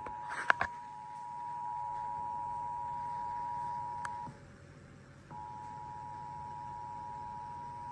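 Emergency Alert System attention signal: the steady two-tone alarm (853 and 960 Hz sounded together) that precedes a severe thunderstorm warning. It drops out for about a second midway, then resumes. A few short clicks come just after the start.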